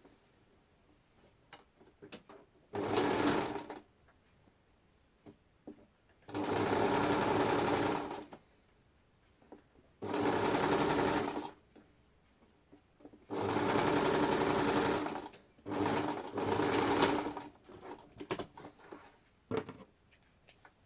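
Electric sewing machine stitching in six short runs of about one to two seconds each, stopping and starting between them, with small clicks of fabric handling in the pauses.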